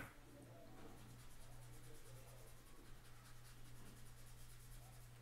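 Faint, quick rubbing strokes of a paper blending stump (esfuminho) on drawing paper, smudging graphite, over a steady low electrical hum.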